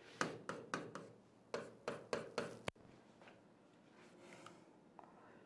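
Stylus scratching and tapping on an interactive display board as a mark is written: a run of about eight short, quick strokes in the first three seconds, then only a few faint ones.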